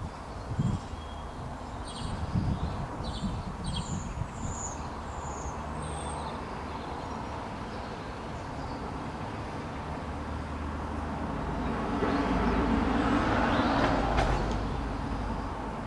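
Breeze gusting on the microphone, with small birds chirping a few times in the first seconds. From about two-thirds of the way through, the rumble of a passing vehicle swells, peaks and fades.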